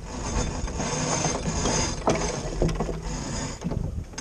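Sailboat rigging being worked: a line hauled in through blocks and a winch, with ratchet clicks over a steady rush of water and wind.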